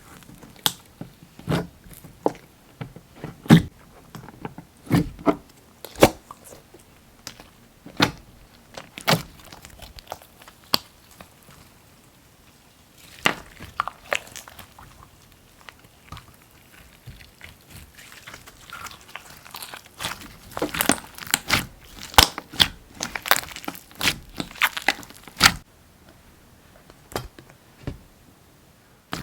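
Slime being squeezed and pressed by hand, making irregular sharp clicks and crackling pops that come thickest in a run late on.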